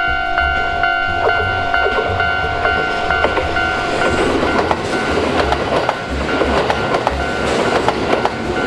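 Kintetsu limited express electric train passing close by, its wheels and running gear building to a loud rumble and clatter from about four seconds in. An electronic level-crossing bell rings steadily, about two strikes a second, and is drowned out once the train is alongside.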